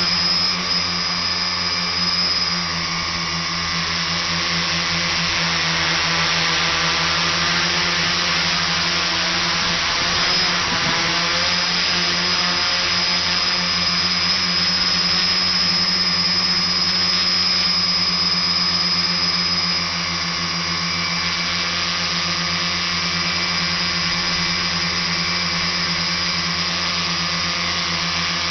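Tricopter's electric motors and propellers running in flight: a steady, loud buzz with a high whine over a rushing hiss.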